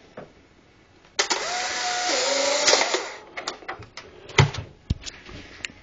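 Polaroid instant camera taking a picture: a sharp shutter click, then its motor whirs for about a second and a half, dropping in pitch partway, as it ejects the print. A few handling clicks and knocks follow.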